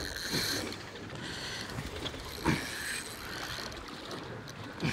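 Fishing reel being worked against a heavy fish pulling deep, its mechanism clicking and grinding, over steady strong wind and water against the boat, with a few short sweeping sounds.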